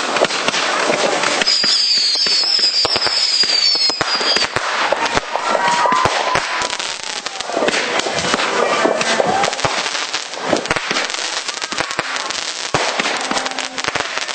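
Fireworks going off in a dense, continuous barrage of cracks, pops and bangs. A high whistle sounds a couple of seconds in, and lower whistling fireworks glide up and down in pitch through the middle.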